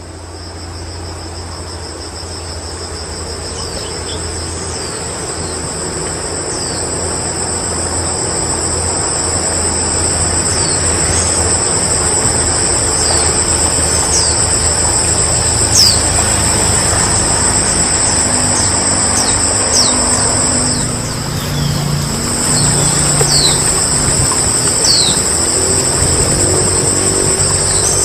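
Chorus of insects shrilling steadily at two high pitches, with short downward-sliding chirps every second or two over it; it grows louder over the first ten seconds.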